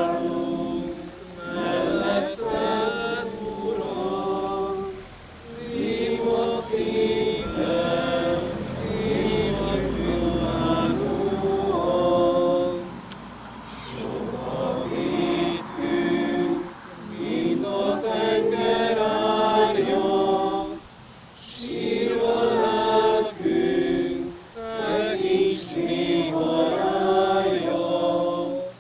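A small group singing a hymn unaccompanied, in long phrases with short breaks for breath between them.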